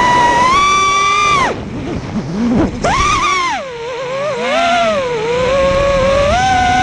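Eachine Wizard X220 FPV racing quadcopter's motors and propellers whining in flight, the pitch rising and falling with the throttle. About a second and a half in the whine drops away as the throttle is chopped, then rises sharply about a second later when the throttle is punched back up.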